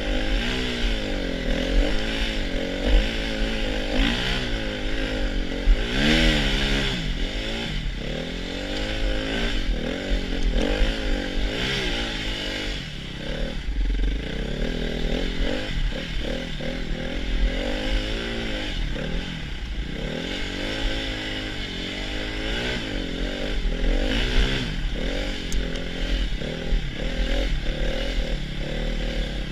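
Dirt bike engine under way, its pitch rising and falling over and over as the throttle is opened and closed, over a steady low rumble.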